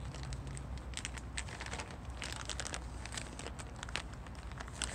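A treat bag crinkling and rustling as a hand fumbles to get dog treats out of it, in irregular crackles that grow busier about two seconds in.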